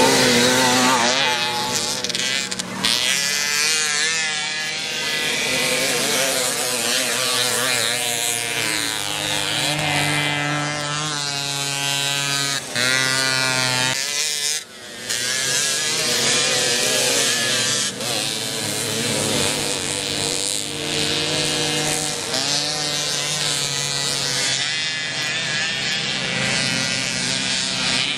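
Racing moped engines buzzing and revving hard, their pitch climbing again and again and dropping back at each gear change, with more than one engine heard at times.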